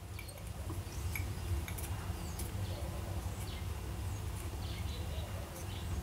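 Faint small clicks and ticks as a fountain pen's converter is twisted to draw ink up from the bottle, over a steady low hum.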